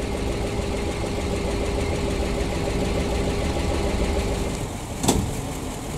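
PAZ-672 bus's V8 engine idling smooth and even, with no knock: the earlier knocking has been cured. A single sharp click sounds about five seconds in.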